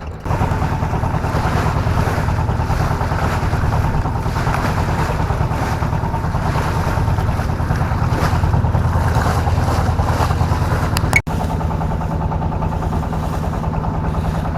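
Small fishing boat's engine running steadily under way, a low rapid pulsing hum with wind and water noise over it; the sound drops out for an instant about eleven seconds in.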